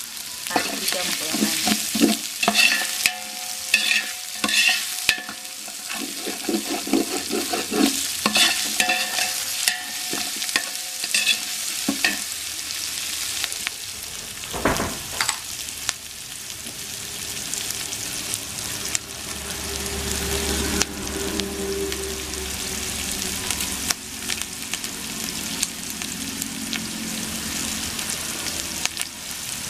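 A steel ladle stirring and scraping in an aluminium pot, its clinks ringing off the metal, over the steady sizzle of onions and green chillies frying in oil. The clinking stops about twelve seconds in, and the frying hiss goes on.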